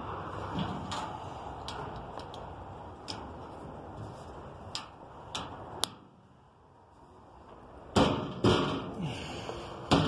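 Latches and lid of a Harbor Freight box being worked: scattered sharp clicks for the first six seconds, then, from about eight seconds in, a few louder clunks as latches snap and the lid knocks shut.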